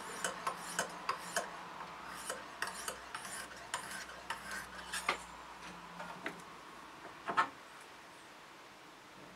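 Steel knife blade stroked against a hand-held sharpening rod: quick scraping strokes, about three a second, with a short pause near two seconds in, stopping about six seconds in, then a single knock a little after seven seconds.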